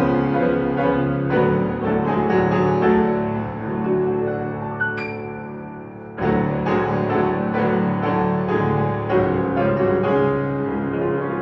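Piano music: chords struck and let ring, fading away about five seconds in before a loud new chord comes in about a second later and the playing carries on.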